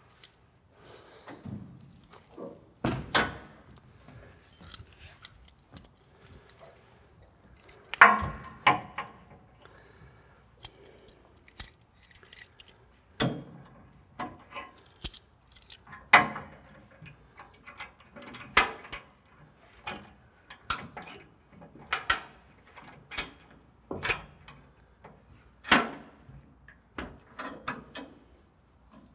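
Steel C-clamp being fitted and screwed tight against an aluminum truck skid in a pickup bed: irregular metallic clinks, taps and knocks, with a few louder clanks that ring briefly.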